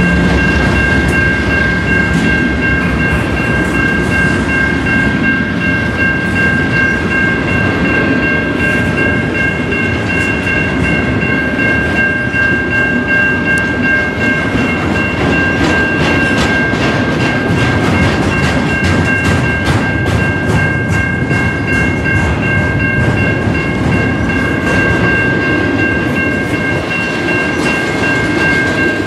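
Double-stack intermodal well cars rolling past with a steady rumble and wheels clacking over the rail joints. A grade-crossing warning bell rings steadily all the while.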